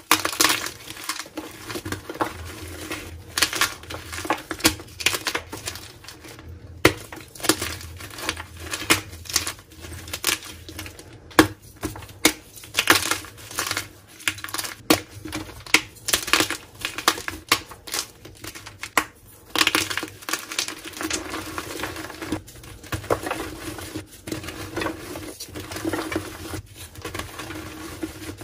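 Hands crushing and crumbling reformed gym chalk blocks into powder: a dense, uneven run of crisp crunches and crackles, with a few sharper snaps where pieces break.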